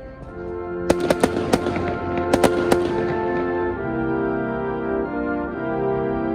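Fireworks bursting, a quick run of sharp bangs and cracks in the first three seconds, over music with long held chords.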